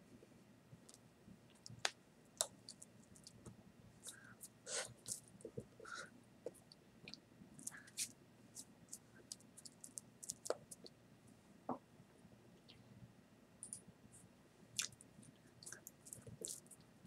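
Scattered soft clicks and taps of hands striking and brushing against each other while signing in ASL, irregular and quiet, with two sharper taps about two seconds in.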